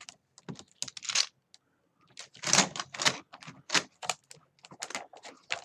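Irregular clicking and clacking of a disassembled gaming keyboard's keys and plastic parts being pressed and handled.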